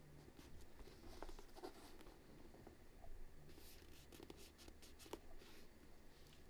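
Faint, light scratching and rustling with scattered small ticks.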